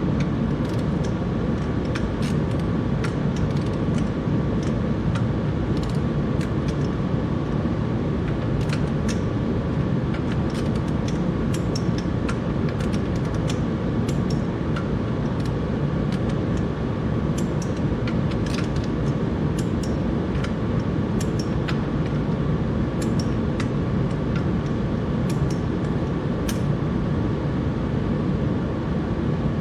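Steady low machine hum with a faint whine, with scattered sharp metallic clicks and taps from a socket wrench as the tractor's flywheel bolts are tightened in a crisscross pattern.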